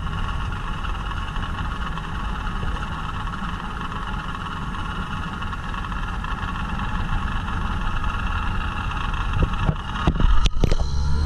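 Outboard drag boat engine running at a steady speed, heard from on board, slowly getting a little louder. A few sharp knocks near the end.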